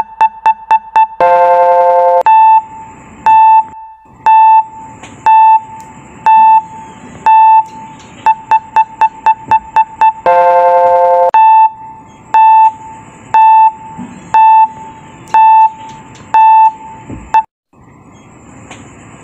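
Electronic countdown-timer beeps: a short high beep about once a second, quickening into rapid beeps and ending in a long buzzer lasting about a second. The cycle comes round twice, then cuts off shortly before the end.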